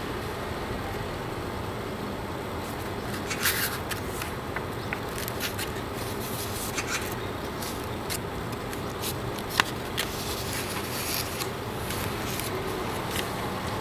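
Pages of a handmade paper booklet being handled and turned by gloved hands: scattered paper rustles and small clicks, one sharp tick a little before ten seconds in. Under them runs a steady low background noise.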